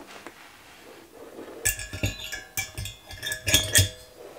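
The metal ring burner housing clinks and rings against the engine's finned heater head as it is fitted. A run of metallic clinks starts about halfway in, and the last two near the end are the loudest.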